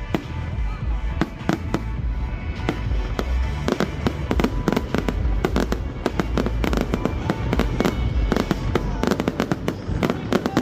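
Fireworks display: a barrage of sharp bangs and crackling bursts over a low rumble, the bursts coming much faster and closer together from about four seconds in, with music playing behind.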